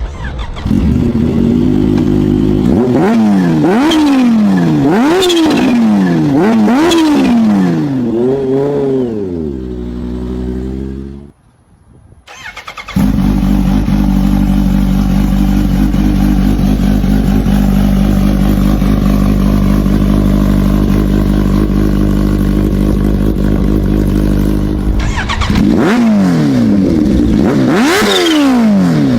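Kawasaki Ninja H2R's supercharged inline-four engine revved in repeated sharp blips that rise and fall. The revs drop off and the sound briefly goes quiet. It then runs at a steady pitch for about twelve seconds before being revved in quick blips again near the end.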